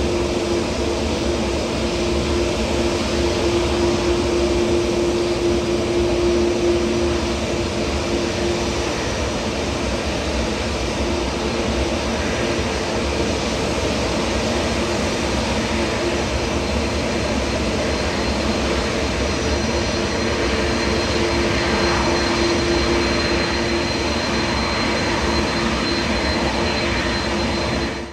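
Jet airliner engines running, a steady rumble with a held tone and a faint high whine.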